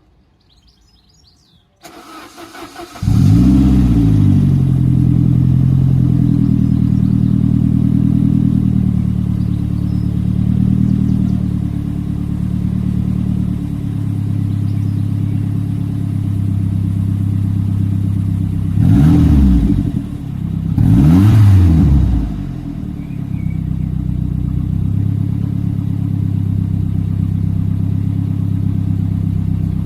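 1993 Saab 900 turbo's B202 two-litre four-cylinder engine, heard through a new Jetex aluminised half exhaust system. It is cranked and catches about three seconds in, then settles to a steady idle. Two short throttle blips come about two-thirds of the way through before it returns to idle.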